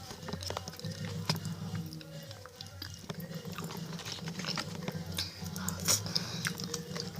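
Close-miked chewing and biting of food, with many short sharp crunches and mouth clicks.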